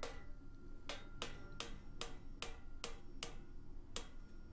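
Light hammer taps on thin welded sheet steel, about ten sharp taps at an uneven two or three a second, some leaving a faint metallic ring, as the ear of a sheet-steel horse head is worked into shape.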